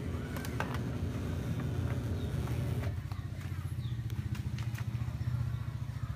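A motor engine running steadily, a low rumble, with a few light clicks near the start.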